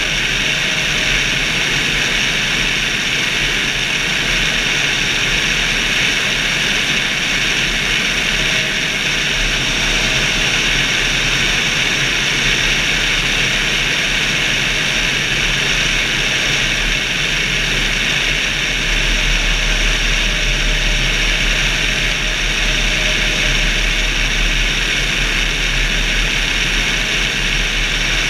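Steady rush of airflow and propeller-engine drone in flight, picked up by a camera mounted on a motorglider's wing.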